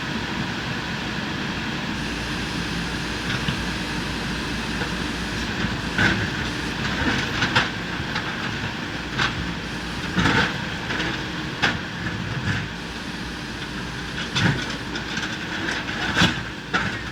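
JCB 3DX backhoe loader's diesel engine running steadily, with sharp, irregular clanks and knocks of metal on concrete or rubble every second or two.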